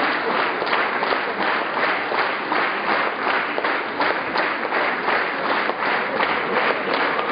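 Large audience applauding: many hands clapping in a dense, steady stream.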